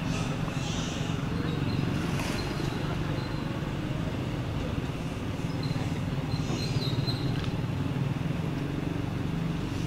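Steady low rumble of motor traffic, with no clear animal call.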